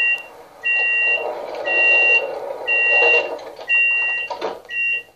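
Door-closing warning beeps from the sound decoder of a model LINT 27 (class 640) diesel railcar, played through its small speaker: a two-tone beep repeating about once a second, six times, with a hiss under the middle beeps and a short click about four and a half seconds in.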